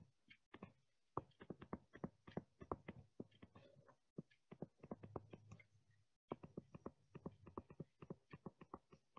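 Faint, rapid, irregular clicks of a stylus tapping and stroking on a tablet screen while writing out numbers.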